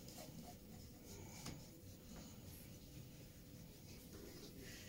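Faint scratching of a pencil drawing a line on drawing paper, in near silence.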